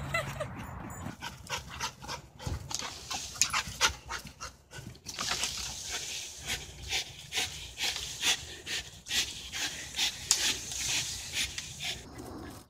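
A dog panting hard in quick, noisy breaths, about two a second, from the exertion of jumping.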